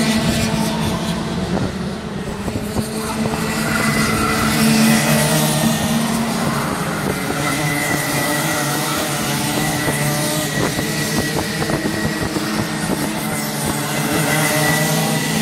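Several racing karts' two-stroke engines running together as a pack passes through a bend, their overlapping tones shifting in pitch.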